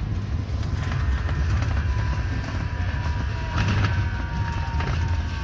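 Stadler Citylink Class 399 tram-train running on mainline rails, heard from inside the driver's cab: a steady low rumble of wheels on track with a few sharp clicks and a thin high whine.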